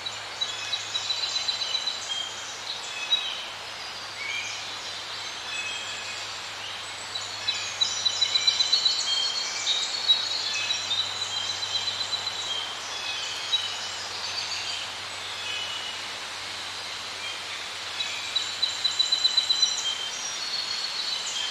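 Birds chirping and singing over a steady hiss, with fast rattling trills that are loudest about eight and again about nineteen seconds in.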